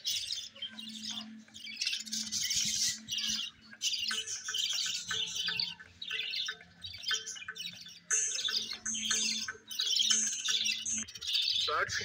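A flock of budgerigars chattering and chirping continuously, with short dips in the chatter every couple of seconds.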